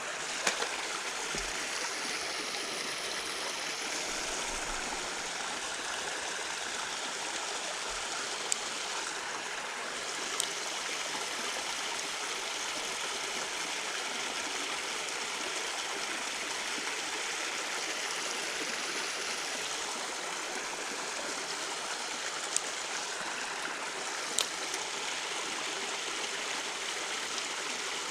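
Creek water running and trickling steadily, with a few faint sharp clicks scattered through it.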